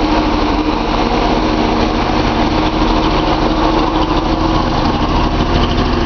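Datsun 280Z L28 fuel-injected straight-six running steadily at idle, with cylinder 6 misfiring; the owner thinks a dirty filter on that cylinder's injector is starving it of fuel and leaving it too lean.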